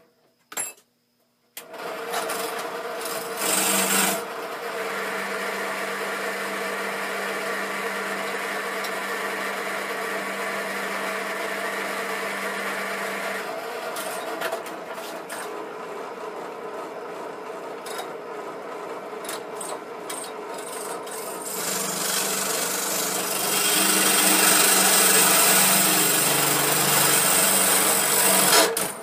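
Benchtop drill press starting up about a second and a half in and running steadily as its bit drills into the workpiece. Near the end the cutting gets louder and harsher.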